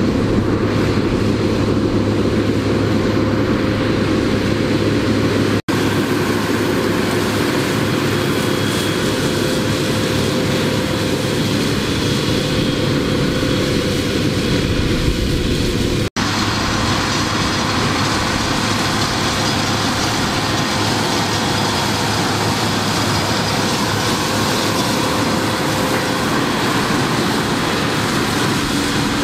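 Fendt Vario 820 TMS tractor working under load, driving a Dragone Butterfly flail mulcher through a standing cover crop: a steady engine drone mixed with the mulcher's rotor chopping the crop. The sound drops out briefly twice.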